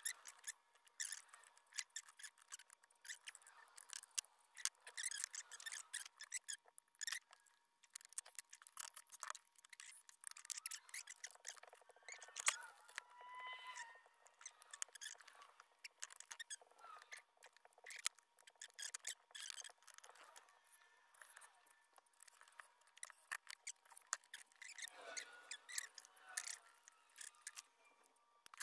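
Faint clicks, taps and light rattles of small parts as the throttle cable on a Husqvarna 365 chainsaw is handled and adjusted, with a brief squeak about halfway through.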